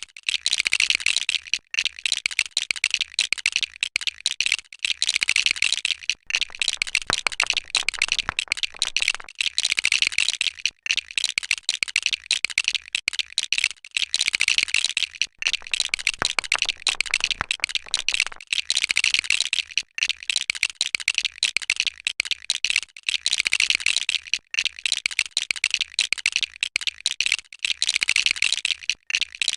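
Plastic LEGO bricks clicking and rattling without pause as they are picked out of loose pieces and pressed together, in a dense, fast patter that swells and eases every second or two.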